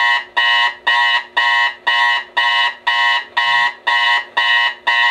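Digital alarm clock beeping, about two short electronic beeps a second in an even rhythm, cutting off suddenly at the very end.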